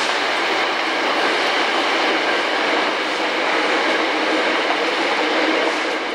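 A steady, even rushing noise with no distinct strikes, of the kind a passing train or heavy traffic makes.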